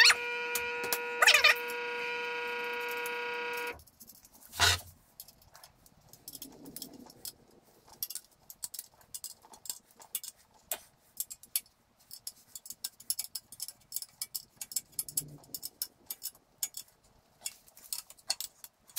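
A steady pitched hum that cuts off suddenly a few seconds in, then a single sharp clunk, followed by scattered light clicks and taps of steel parts and hardware being handled on a lawn mower jack.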